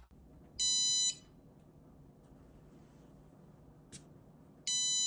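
Homemade alarm's electronic buzzer sounding a steady high beep for about half a second, then a faint click, then the same beep again, longer, starting near the end.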